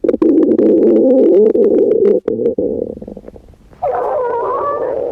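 Stomach growling: long gurgling rumbles dotted with small pops, dying down after about two seconds, then a second, higher-pitched gurgle starting near the end.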